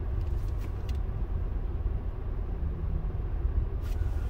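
Steady low rumble inside a car's cabin as the car idles stationary in traffic, with a few faint clicks.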